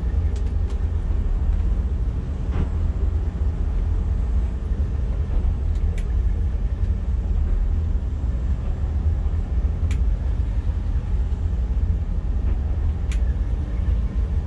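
Twin MerCruiser 7.4-litre V8 inboard engines idling with a steady low rumble, with a few faint clicks over it.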